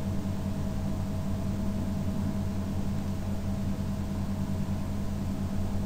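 Steady low hum with a faint constant higher whine under a light hiss: background machine or electrical noise picked up by the microphone.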